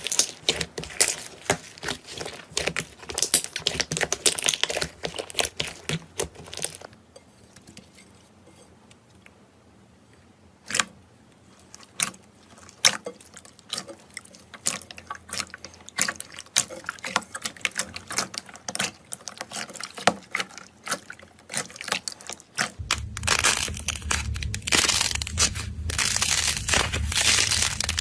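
Slime being squished and stretched by hand, with dense sticky crackling and popping. It thins to scattered single pops partway through, then turns busy and crackly again near the end along with a low rumble.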